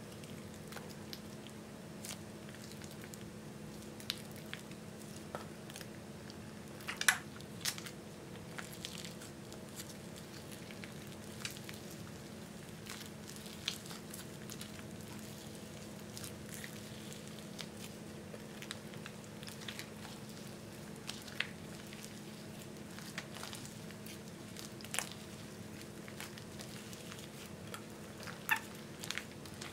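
Soft slime being stretched, squeezed and kneaded by hand, giving scattered small sticky pops and clicks as air pockets burst, the loudest about seven seconds in and again near the end. A steady low hum runs underneath.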